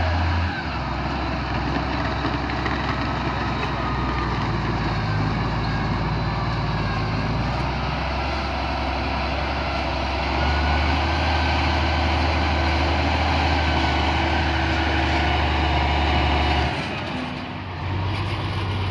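A heavy vehicle engine running steadily with a deep hum that shifts in pitch a few times and dips briefly near the end.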